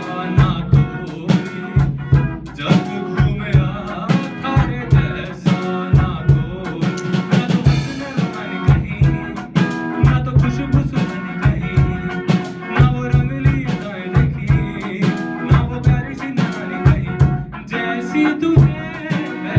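Live band playing an instrumental passage: an electric guitar with a drum kit keeping a steady beat, with no vocals.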